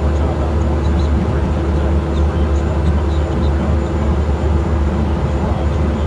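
Bobcat mini excavator's diesel engine running steadily, heard close up from the operator's seat as a loud, even low drone.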